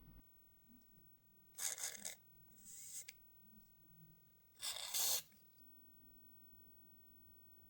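Three short scraping, rasping bursts of plastic handling noise as the nose trimmer's battery compartment is worked open and the battery handled. The loudest burst comes about five seconds in.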